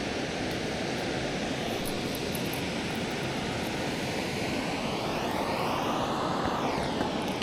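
Steady rushing water from the dam's outflow, with an airplane passing overhead: a swelling whoosh that rises and then falls in pitch, loudest about six seconds in.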